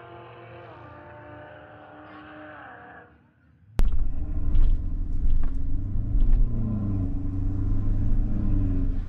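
2020 GMC Sierra's 2.7-litre turbo four-cylinder engine running after a quarter-mile pass, its note steady and dipping slightly in pitch. About four seconds in the sound cuts to a much louder low rumble of the truck rolling at low speed.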